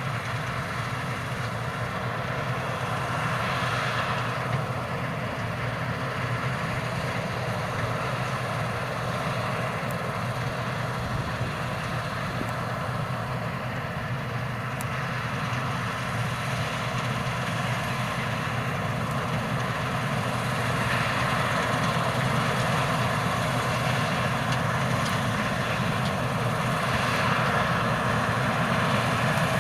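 Claas Lexion 540 C combine harvester running steadily under load while harvesting, a continuous engine drone with whirring machinery that grows slightly louder in the second half.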